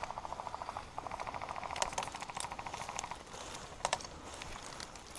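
Airsoft electric gun firing on full auto in two rapid bursts of about fourteen shots a second, the second longer, lasting until about three seconds in, with a few sharp rustles of dry stems close by.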